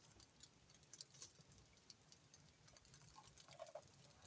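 Near silence, with faint scattered light clicks and ticks.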